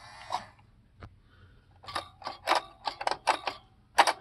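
Clicks and rattles from handling the opened RCA SelectaVision videodisc player's mechanism: a short rattle at the start, a single click about a second in, a quick run of clicks from about two seconds in, and a sharp click near the end.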